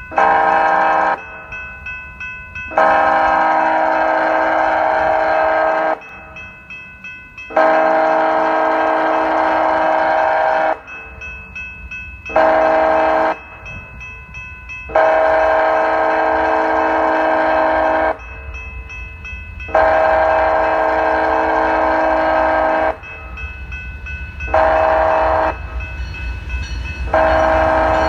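A BNSF diesel locomotive's multi-chime air horn blows a run of long and short blasts in the grade-crossing pattern (long, long, short, long) as the freight train approaches the crossing. Between blasts the crossing bells can be heard ringing, and the train's low rumble grows toward the end as the lead locomotives arrive.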